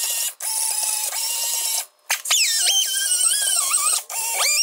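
Milwaukee M12 cordless drill spinning a small bit in the plastic intake manifold's injector holes to clean off drilling burrs. It runs in several short bursts with brief stops, its whine rising and falling as the trigger is squeezed and eased.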